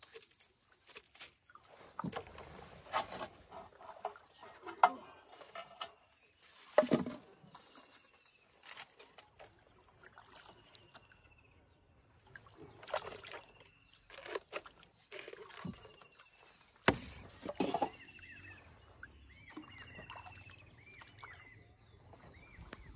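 Knocks and splashes from a wooden rowboat as plastic-bottle fish traps on lines are handled and thrown into the lake, with water sloshing at the hull. The knocks are scattered and sharp, the loudest about five, seven and seventeen seconds in.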